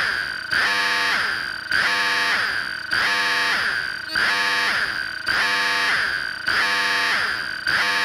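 Loud synthetic emergency-alert alarm: a harsh, warbling tone with falling sweeps, repeating about once every 1.2 seconds.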